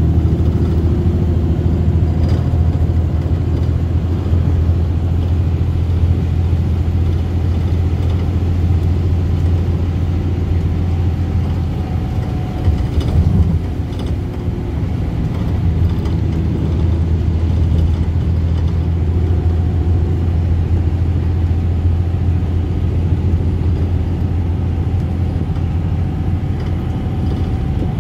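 Bus engine and road noise heard from inside the passenger cabin while the bus travels at speed: a steady low drone. Around the middle the drone briefly breaks and a few knocks are heard.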